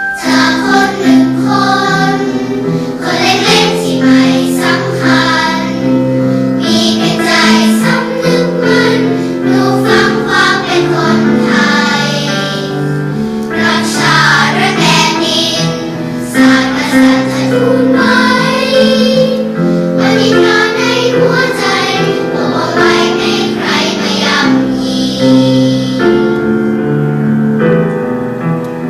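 A children's choir of young girls singing a song in Thai, over steady held chords of an accompaniment.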